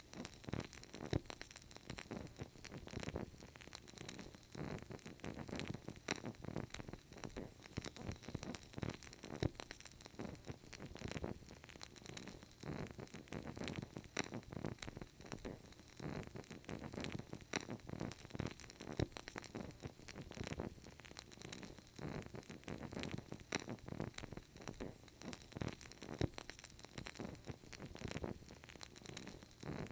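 Burning candle crackling softly: a dense, irregular run of small crackles and pops over a faint hiss.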